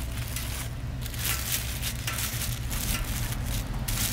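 Plastic cling wrap crinkling in irregular bursts as it is spread over shaped bread-roll dough to cover it for proofing, over a steady low hum.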